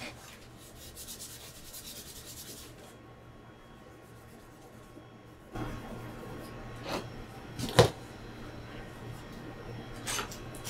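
Grey abrasive sanding pad rubbed quickly back and forth over a small metal bracket to give it a brushed finish, a rapid scratchy scrubbing for about the first three seconds. Later a low hum comes in, with a few short knocks; the loudest is sharp, about eight seconds in.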